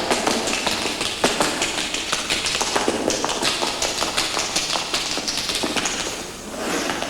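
Rapid, irregular tapping and clicking that thins out briefly about six seconds in.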